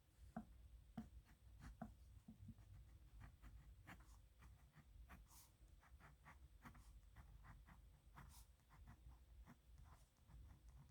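Pen scratching across paper in many short, quick, irregular strokes as someone writes by hand.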